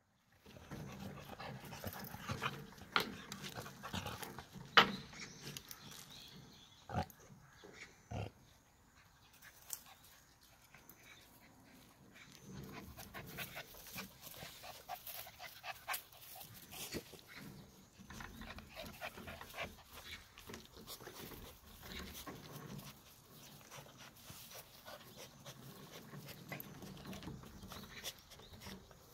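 Fawn Korean Jindo dogs, an adult and a young puppy, play-wrestling: irregular dog noises and scuffling, with a few sharp knocks in the first eight seconds.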